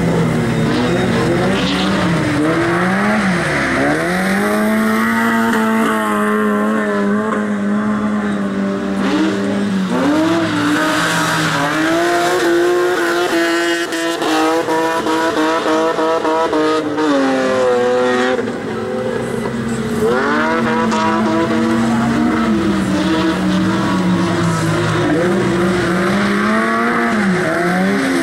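BMW E36 3 Series rally car's engine revving hard on a lap of a dirt track, its pitch climbing and dropping again and again as it shifts and lifts for the corners.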